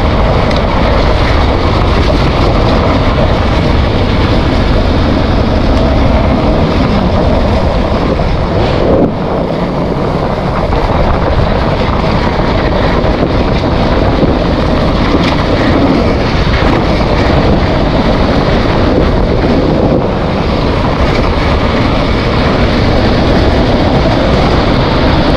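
Dirt bike engine running steadily as the bike rides along a dirt trail, heavily mixed with wind buffeting on the bike-mounted camera's microphone. There is a brief dip in the sound about nine seconds in.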